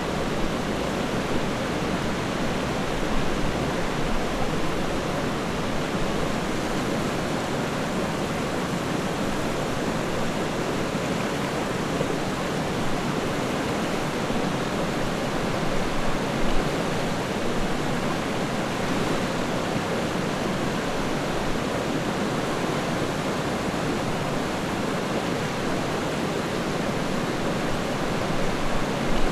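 Steady rush of a flowing river, water running over rocks without letting up.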